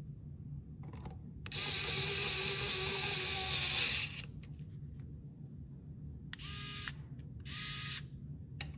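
Small electric screwdriver motor running, once for about two and a half seconds and then twice briefly for about half a second each, with small handling clicks in between.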